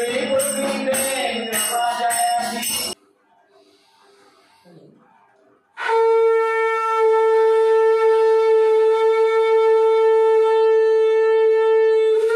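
Singing with a tambourine jingling, which stops about three seconds in. After a short hush, a conch shell (shankh) is blown in one long, steady note of about six seconds, the ritual blast at the close of the aarti.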